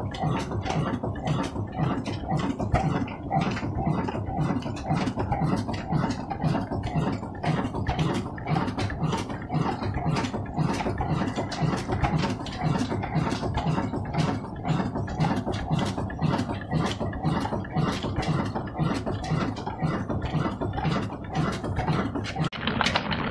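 Ruston Hornsby stationary diesel engine running steadily, its slow, even exhaust beat thudding out of a tall exhaust pipe. The sound changes abruptly near the end.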